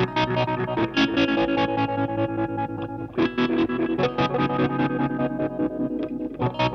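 Intro music: an electric guitar played through distortion, picking a fast riff of about five notes a second, with the chord changing every couple of seconds.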